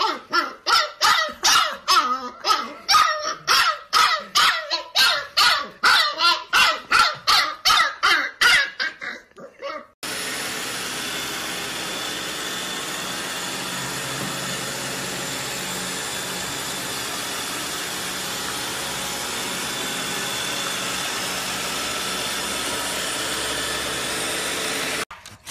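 Husky puppy yipping and barking rapidly, about three high yips a second, for some eight seconds. Then, from about ten seconds in, a steady even hiss with faint held tones runs on until it cuts off shortly before the end.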